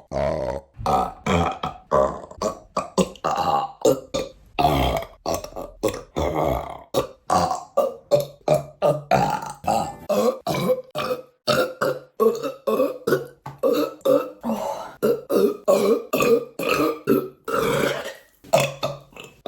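A woman belching over and over, short burps following one another about two a second with brief gaps between.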